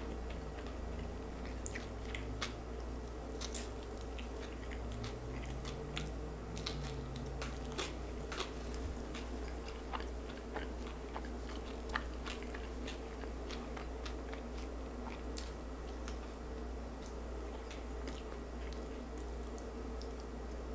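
Close-miked chewing and biting of a blackened mahi mahi fish taco in a soft flour tortilla, with many scattered small mouth clicks and smacks. A steady low hum runs underneath.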